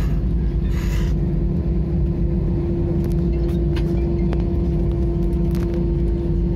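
Airbus A320 cabin noise while taxiing: steady low rumble of the CFM56 engines at idle, with a constant hum running through it. There is a brief hiss about a second in and a few faint clicks later.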